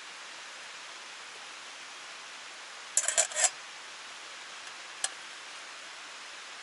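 Steady rush of a stream with a waterfall. About three seconds in there is a quick run of four or five sharp metallic clinks, and one more clink about two seconds later.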